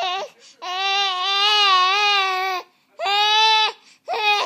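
A six-and-a-half-month-old baby vocalizing in four loud, held calls at a fairly steady pitch: a short one at the start, one long one of about two seconds, then a shorter one and a brief one near the end.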